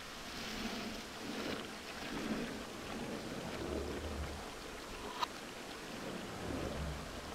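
Thick sauce bubbling and sizzling in a pan, a steady crackling hiss that swells and eases as a slotted spatula is pushed through it. There is one sharp click about five seconds in.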